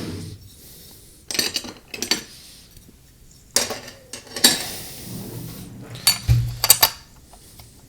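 Small metal heat-station plates clinking and clattering against each other as they are sorted through, in three short bursts.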